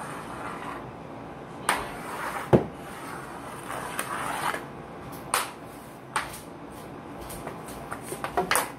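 A hockey stick blade and a ball knocking and scraping on a laminate floor in stickhandling, a handful of separate sharp knocks with scrapes between them. Near the end comes a quick run of small clicks.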